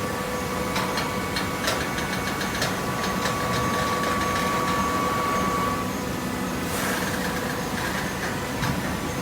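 Hydraulic baling machine running: a steady motor and pump hum with a held whine that stops about six seconds in, scattered clicks early on, and a short hissing burst about a second after the whine stops.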